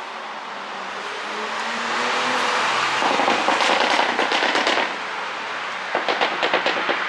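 Porsche Cayenne Coupe's 3.0-litre turbocharged V6 exhaust, with a tuned ECU, rising in revs and then letting off a rapid string of pops and crackles on the overrun, twice. The crackles are the sign of a pop-and-bang ECU tune.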